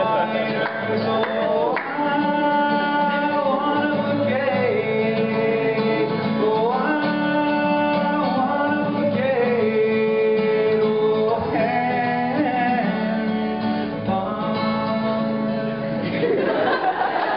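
A man singing a live comic song, holding long notes over guitar chords. About a second before the end the music stops.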